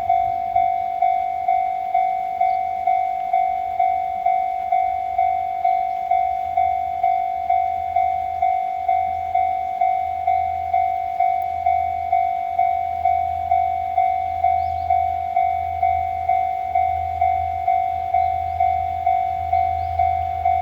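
Japanese level-crossing alarm ringing, a steady electronic bell tone struck about twice a second. Under it a low rumble grows louder toward the end as the HB-E300 series hybrid railcar approaches the crossing.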